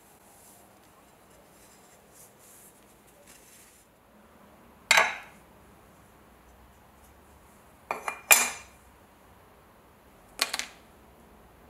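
Metal clinks as the restored steel bayonet is set down on a wooden block and a metal belt buckle is laid on it: one sharp clink about five seconds in, a quick run of three or four clinks about three seconds later, and one more clink near the end, each ringing briefly. Faint room tone between them.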